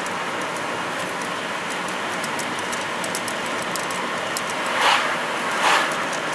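Steady road and wind noise inside a car towing a caravan at road speed, with light ticking rattles. Near the end two oncoming cars whoosh past in quick succession.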